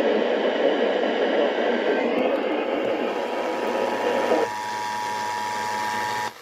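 Radio static hiss, then about three seconds in the Emergency Alert System's two-tone attention signal starts. The tones carry on alone after the static drops out and cut off abruptly just before the end, ahead of the spoken warning.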